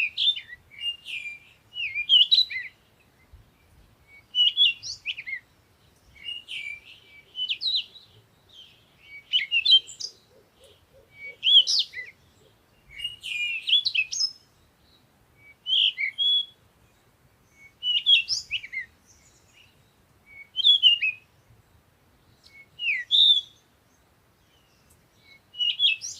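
A bird singing short, quick warbling phrases with a gap of about two seconds between each.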